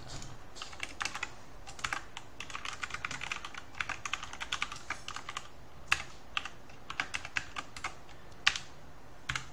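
Typing on a computer keyboard: runs of quick keystrokes and a few louder single clicks, as code is written.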